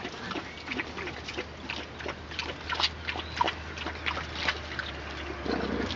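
A litter of French bulldog puppies playing and tussling: a run of short, irregular grunts and squeaks mixed with scuffling sounds.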